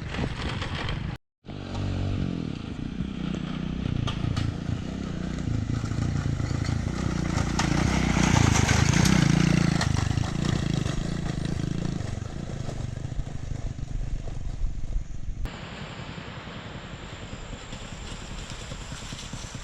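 Motorbike engine running on a rough off-road track, its pitch shifting with the throttle and louder about halfway through, with clatter from the ride. The sound drops out briefly near the start and changes abruptly to a quieter noise about fifteen seconds in.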